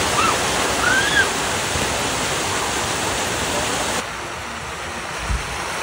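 Artificial rock waterfall pouring into a swimming pool, a steady rush of splashing water, with a few short children's calls in the first second or so. About four seconds in it changes to a softer steady rush of water running down a pool water slide.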